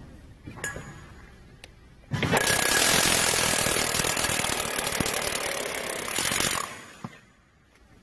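Power drill spinning a long insulation hole saw through a 150 mm thick insulation panel, cutting a 152 mm hole. The drill starts about two seconds in, runs steadily for about four and a half seconds and stops near the end, with a few light knocks from handling the saw before it.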